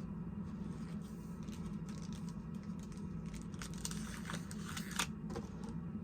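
Small plastic clicks and light crinkling from handling action-figure accessories and packaging, with a few sharper clicks in the second half, over a steady low hum.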